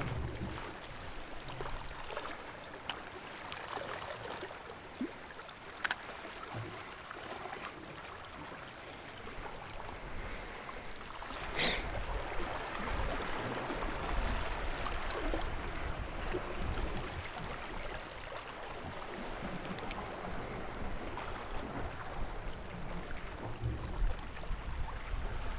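Shallow seawater lapping and rippling against weedy rocks, with gentle wind on the microphone and two or three sharp clicks.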